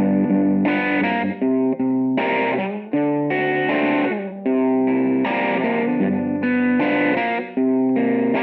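Distorted electric guitar playing a chord riff, the chords changing about once a second with short breaks between them.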